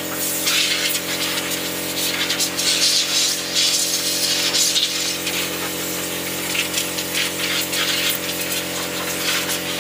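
A steady machine drone at a fixed pitch with overtones, under a hiss with light clattering.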